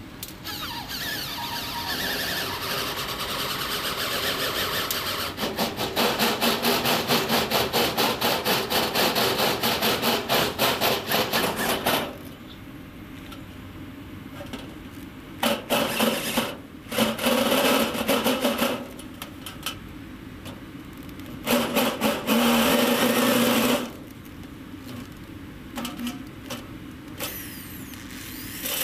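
Corded electric drill running and boring into a sheet-metal panel channel, first in a long run that turns into a fast pulsing chatter, then in several short bursts a few seconds long with pauses between.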